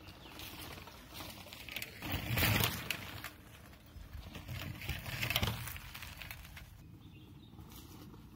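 Decathlon Rockrider 540 mountain bike rolling over a dirt trail close by, its tyres rumbling and crunching on the soil. The sound swells twice as the bike passes, about two and a half seconds in and again about five and a half seconds in.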